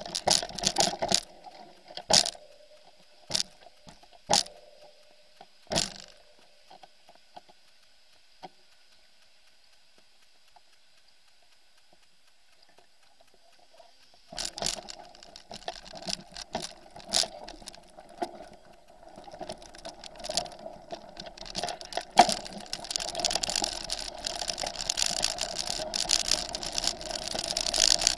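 Mountain bike knocking and rattling as it rolls over rocks, with several sharp knocks early on, then a nearly quiet stretch. From about halfway there is a continuous rattle with tyre noise on a gravel trail, growing louder toward the end.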